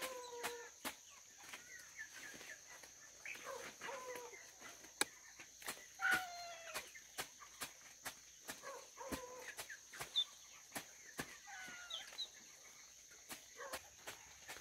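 Chickens giving short, falling squawking calls, repeated many times at uneven intervals, with scattered clicks and scuffs.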